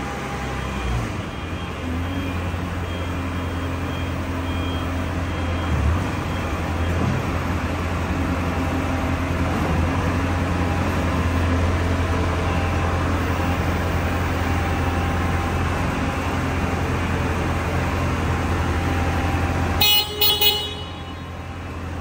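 Bobcat S630 skid steer's diesel engine running steadily under load as the machine manoeuvres and raises its loader arms. Near the end come a couple of short high beeps.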